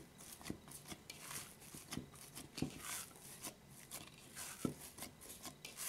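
Hands punching down risen yeast dough in a bowl, deflating it after its first rise: soft, irregular squishing and rustling with a few faint thumps.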